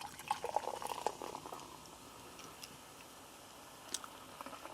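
Faint fizzing crackle of a just-opened Coke Zero, a patter of tiny ticks that fades within the first second or so, with a single soft click near the end.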